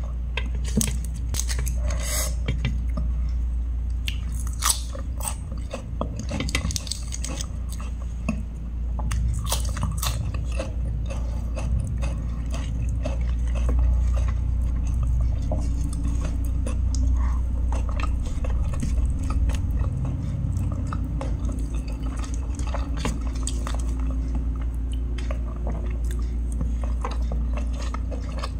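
A person chewing and biting close to the microphone, eating dry chicken curry with rice by hand: irregular short wet clicks and crunches. A steady low hum runs underneath.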